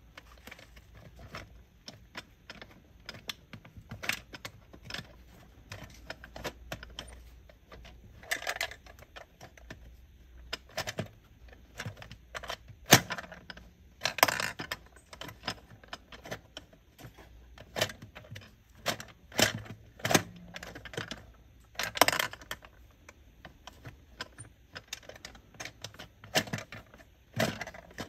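Plastic clicking and clacking from a mini toy claw machine being worked by hand: buttons pressed, the claw arm turning and snapping, and plastic balls knocking against the dome and base. The clicks come irregularly, with a few sharper, louder clacks in the middle and near the end.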